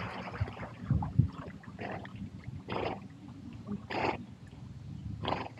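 Dog swimming after a thrown toy: soft splashes of its paddling, four of them about a second apart, over a low wash of moving water.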